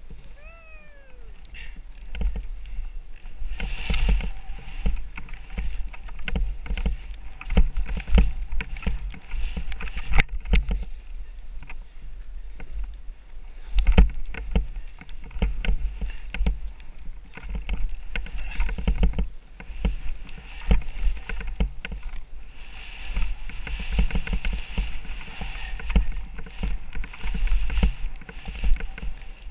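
Rossignol skis turning through soft snow on a steep run: a hiss and scrape of the skis on the snow that swells with each turn, over a low rumble and many small clicks. A short falling squeal about a second in.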